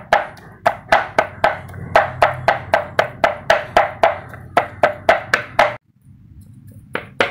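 Meat cleaver chopping raw pork on a thick wooden chopping board: sharp, regular chops, about three or four a second. The sound drops out briefly just before six seconds in, then resumes with two cleavers mincing the pork.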